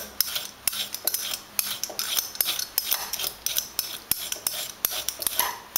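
Vegetable peeler scraping strips off an asparagus spear on a plastic cutting board, in quick repeated short strokes with light knocks against the board.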